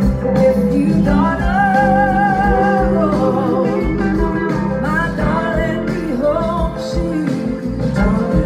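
Live band playing through the outdoor PA: a woman singing a sustained melody with vibrato over electric guitar and bass.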